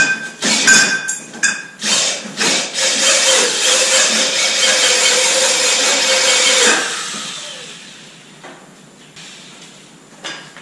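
Power drill spinning a small wire wheel inside a steel tube to scour out the bore. It comes in a few short on-off bursts, then runs steadily for about four seconds and winds down once released, with a few light knocks after.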